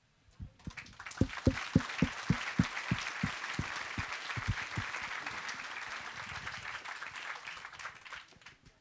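Audience applauding. The clapping starts about half a second in, holds steady with some louder claps close by, and dies away near the end.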